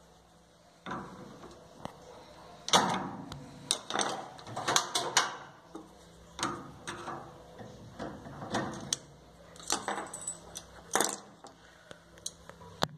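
Irregular clicks, light rattles and knocks, the loudest about three seconds in and again near eleven seconds.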